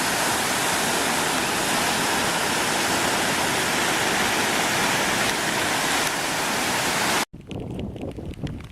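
Loud, steady rushing noise that cuts off abruptly about seven seconds in, giving way to a much quieter background with faint scattered clicks.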